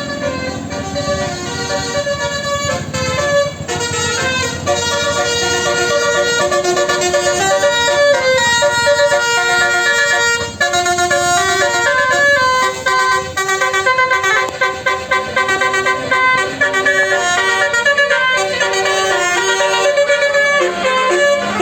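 A tour bus's 'telolet basuri' multi-tone musical horn playing a melody of held notes that step from one pitch to the next, over the rumble of the bus's engine.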